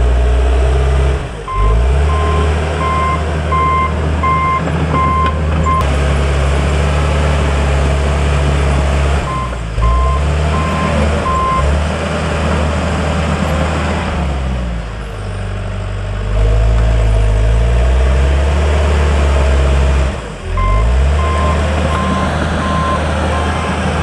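John Deere 450H crawler dozer's diesel engine working under load, its revs dropping and picking up several times as it pushes at and backs off from an oak tree. Its reversing alarm beeps steadily in three spells while it backs up: near the start, around ten seconds in, and near the end.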